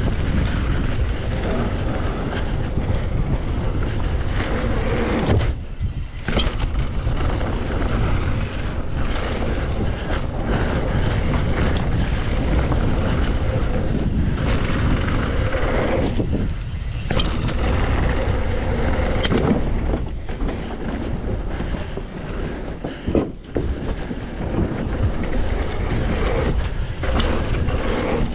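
Mountain bike riding fast down a dirt bike-park trail: tyres rolling on dirt, the bike and chain rattling over the bumps, with wind rumbling on the microphone. The noise drops away briefly a few times.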